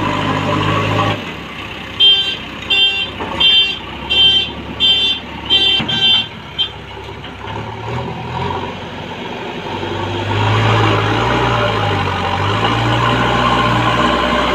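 JCB 3DX backhoe loader's diesel engine running, easing off about a second in, while seven short high-pitched electronic warning beeps sound about 0.7 s apart. Near the end the engine is running loud again, its pitch rising and falling as the machine works.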